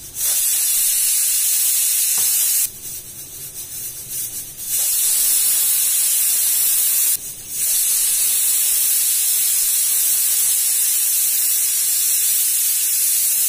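Stainless-steel stovetop pressure cooker whistling three times, each a loud, steamy hiss from the weight valve with a short break between; the third is the longest. The three whistles mark the beef as cooked under pressure.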